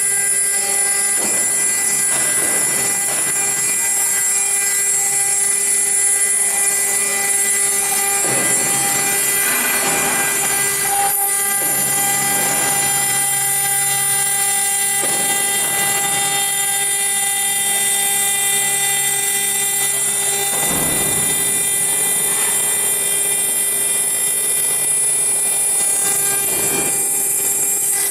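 Stone CNC router spindle running steadily with a water-cooled cutter grinding into a ceramic slab: a constant high whine and hum, with gritty cutting noise that swells and eases every few seconds as the tool moves along the work.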